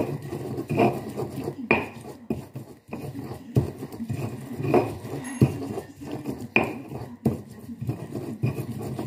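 Stone pestle grinding chilies, shallots and garlic in a stone mortar (Indonesian cobek and ulekan): rough scraping of stone on stone with sharp knocks about once a second. The spice paste is being ground coarse, not smooth.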